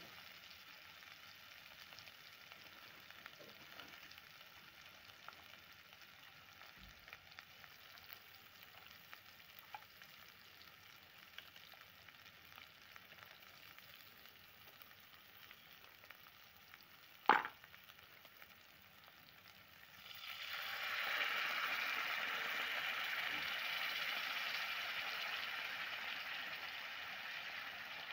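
Spiced onion-tomato masala frying in oil in a kadai: a faint steady sizzle with a single sharp knock late on. A few seconds after the knock the sizzle turns much louder and then slowly dies down.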